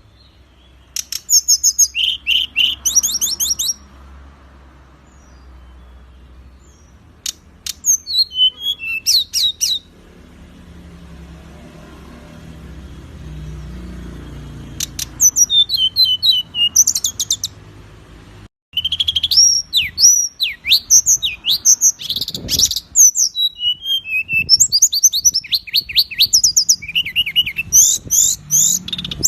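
A songbird singing in rapid bursts of fast, sweeping, repeated high notes, the kind of dense, harsh 'shots' used as masteran song for training caged birds. The phrases come in spurts with short pauses between them, and the song grows busier in the second half, over a low hum.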